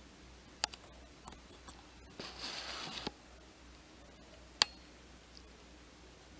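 Small objects being handled: a few light clicks, a scraping rustle of about a second, then one sharp click.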